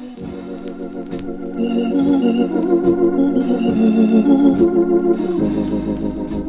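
A Hammond organ plays a slow jazz ballad in sustained, wavering chords with light drums behind it. The organ swells louder about a second and a half in, and a new low note enters near the end.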